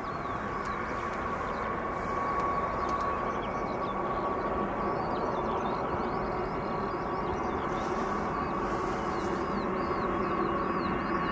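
B-52H Stratofortress's eight TF33 turbofan jet engines at takeoff power: a steady jet rumble with a whine running through it, growing a little louder in the first couple of seconds.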